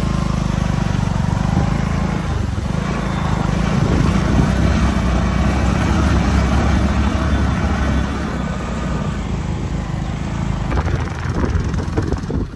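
Motorcycle engine running with road noise, heard from the moving bike on a rough dirt road. A steady low rumble eases after about eight seconds as the bike slows, with a few knocks near the end.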